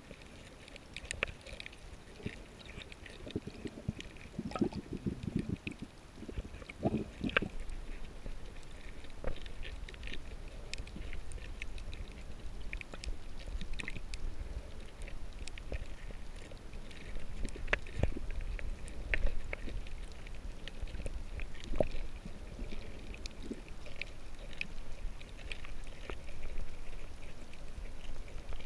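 Underwater water noise picked up by a submerged camera: a steady low rumble and wash with scattered sharp clicks and crackles, and a rougher rumbling stretch about four to seven seconds in.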